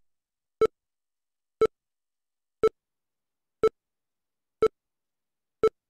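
Short beeps of one steady pitch, repeating about once a second, six times: the NVDA screen reader's progress beep, signalling that its installation is still running.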